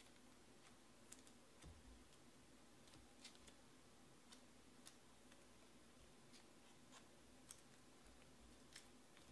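Near silence with about a dozen faint, irregular light clicks of trading cards being handled and slid into plastic sleeves, over a faint steady room hum.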